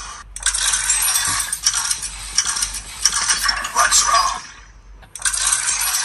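Robosen G1 Megatron robot's servo motors whirring and clicking as it moves its arms. The sound comes in two stretches, with a brief lull about four and a half seconds in.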